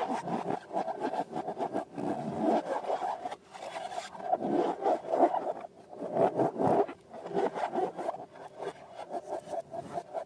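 Rubber balloons and slime being rubbed and squeezed by hand: a run of scratchy, rubbing squeaks with short pauses.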